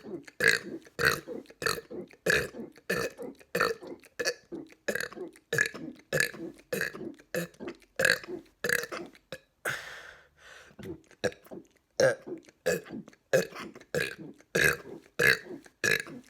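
A man burping over and over in rapid succession, short burps rather than big ones, about two a second, with a brief break about ten seconds in.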